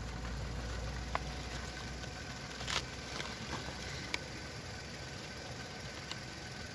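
A small cardboard box of crackling crackers being opened and handled: a few light clicks and scrapes of card, the loudest a little under three seconds in. Behind them runs a steady, low, engine-like hum.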